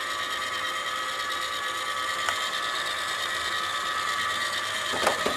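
Liectroux B6009 robot vacuum cleaner running, a steady whine from its motor and brushes as it drives back to its charging dock, with a few clicks near the end.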